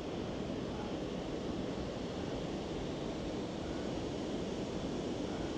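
Steady rushing of wind across the microphone while riding an e-bike, with no separate events.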